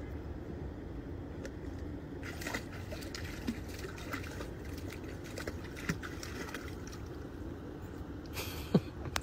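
Water sloshing and splashing as a German wirehaired pointer wades and paws through a shallow ditch, with small splashes and drips from about two seconds in, over a steady low rumble. A short sharp sound near the end stands out as the loudest moment.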